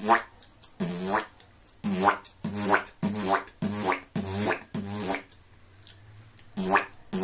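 Beatboxed 'wob wob bass': a train of pitched, buzzing bass wobs made with pursed lips and the tongue pushing forward, about two a second. There is a pause of about a second and a half near the end before two more wobs.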